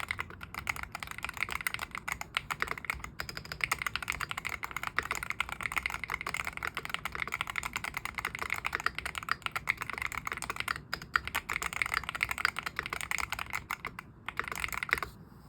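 Fast continuous typing on a Venom 60HE, an O-ring-mounted hall-effect keyboard: a dense run of key clicks with a brief thinning near the end, then it stops.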